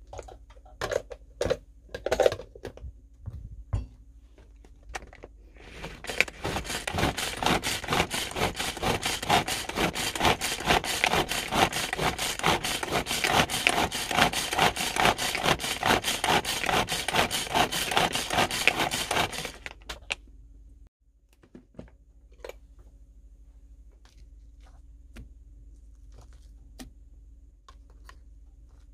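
Pull-string manual food chopper mincing pollock and shrimp meat: the cord is yanked over and over in a fast, steady rhythm, the blades whirring and scraping through the meat, starting about six seconds in and stopping abruptly near twenty seconds. A few knocks and clicks come before it, and only small clicks after.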